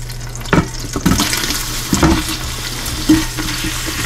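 Chopped onion scraped off a wooden cutting board into an Instant Pot's inner pot of hot butter on saute, with several knocks and scrapes of the board and knife against the pot. A sizzling hiss swells from about a second in as the onion lands in the butter.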